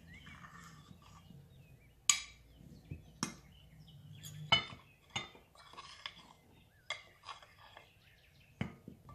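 Spoon scraping and clinking against a mixing bowl while a dry flour coating is divided into two portions, with a handful of sharp clinks spread out between softer scrapes.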